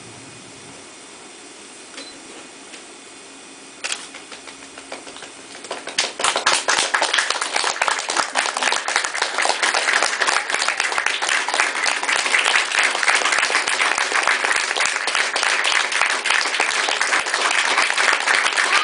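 Audience applause: after a few quiet seconds with a couple of single claps, the clapping starts about six seconds in and keeps on steadily.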